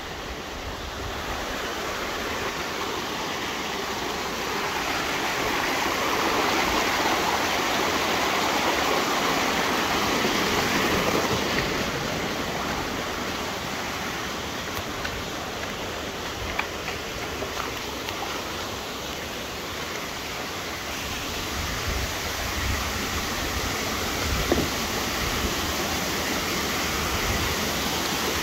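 Steady rushing of water from a mountain stream and waterfalls pouring over rocks, swelling a little louder for a few seconds early on and then easing.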